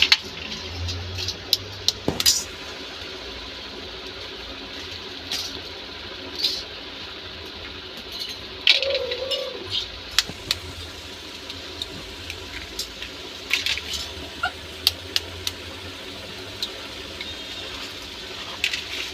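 Raw eggs being tapped and cracked one by one on the metal rim of a pan of simmering curry gravy: scattered sharp taps and cracks over a steady background hiss.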